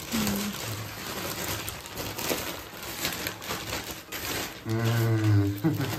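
Plastic courier bag and plastic wrapping crinkling and rustling as hands tear the package open and pull the item out. A person's voice sounds briefly near the end.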